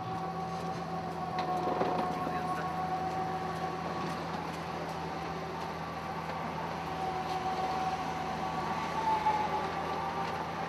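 Street traffic noise, steady throughout, with a constant droning hum under it.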